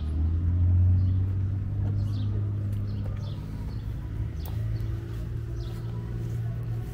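A car engine running close by, a steady low hum that is loudest about a second in and steps up slightly in pitch a little past halfway. Small birds chirp faintly over it.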